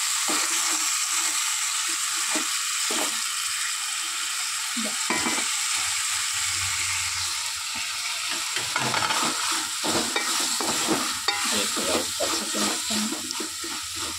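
Tomatoes, grated carrot and onion sizzling in hot oil in a metal pot while a wooden spoon stirs and scrapes through them. The scraping strokes come quicker and denser about two-thirds of the way in.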